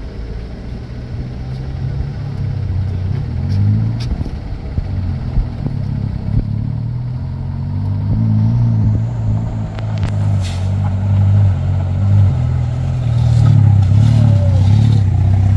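Motor vehicle engine running steadily, getting louder in the second half, with a few sharp clicks along the way.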